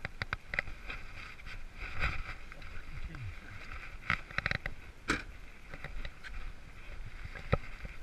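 Camera handling noise: rustling and a scatter of clicks and knocks as the camera is moved about, with a sharper knock near the end.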